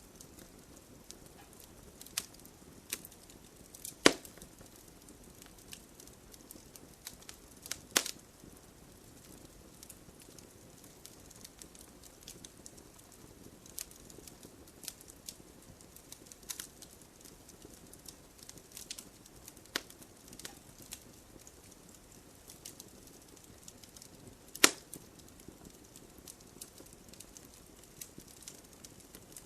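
Firewood burning, crackling steadily: scattered small ticks over a faint hiss, with a sharp, louder pop about four seconds in, another about eight seconds in, and a third late on.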